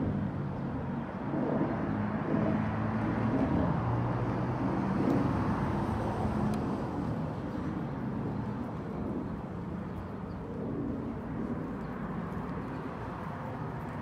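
Road traffic with a vehicle engine running: a steady low rumble and hum, a little louder in the first half.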